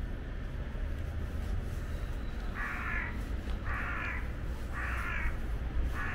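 A crow cawing four times, about a second apart, over a low steady rumble.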